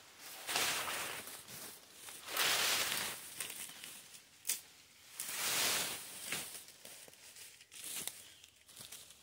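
Leafy branches of a felled tree rustling and swishing as a person pushes through them, in three longer swells, with a few short sharp clicks from twigs and sticks in between.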